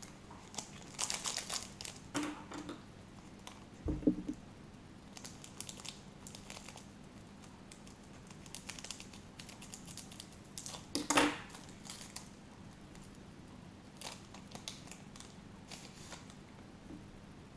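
Foil trading-card pack being cut open with scissors and crinkled as the cards are worked out of the wrapper, in short scattered rustles. A thump on the table about four seconds in, and the loudest crackle of foil about eleven seconds in.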